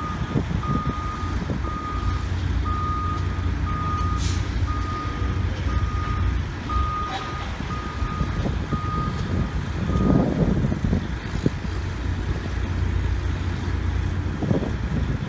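Heavy vehicle's reversing alarm beeping at one steady pitch about once a second over a running diesel engine, stopping about ten seconds in.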